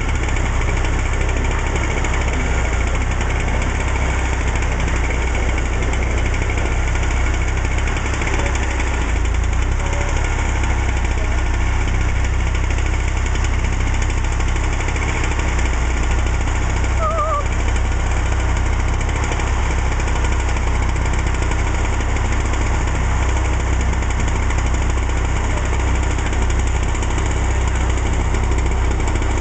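A machine's engine running steadily, from the equipment used to pull ice blocks out of a frozen pond.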